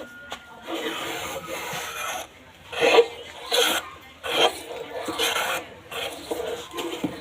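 Hand tool rasping or scraping across wood: a steady scrape at first, then repeated strokes a little faster than one a second.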